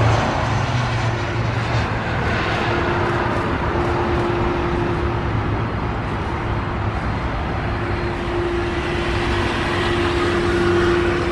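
Jet engines of an Airbus KC-30A (A330-200 MRTT) tanker at take-off power as it rolls and climbs out: a steady rushing rumble with a low hum held through it.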